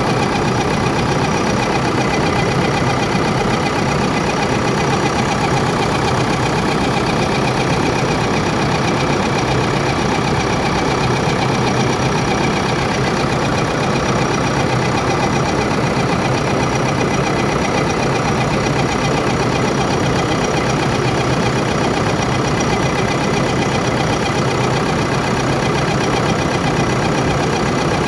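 Vehicle engine idling steadily with an abnormal running noise, the sign of a fault in the engine.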